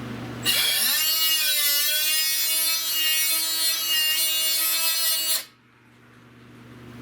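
Power cutoff tool cutting sheet metal: a loud high whine that starts about half a second in, wavers in pitch as it bites into the metal, and cuts off suddenly about five seconds in.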